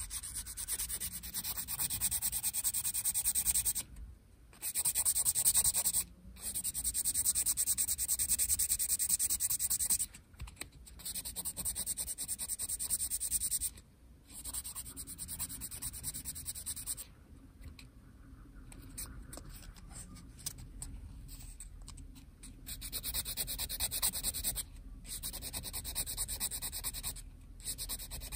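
Abrasive rubbing on a plastic model part in quick back-and-forth strokes, as when sanding or filing down plastic. The rubbing comes in runs of a few seconds broken by short pauses and is fainter for a stretch past the middle.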